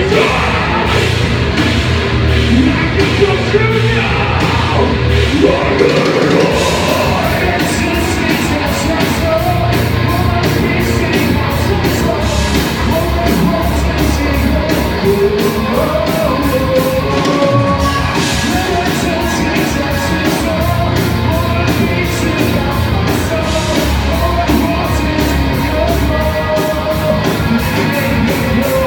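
A live band playing heavy rock, loud, with a fast, steady drum beat, a strong bass line and a singing voice.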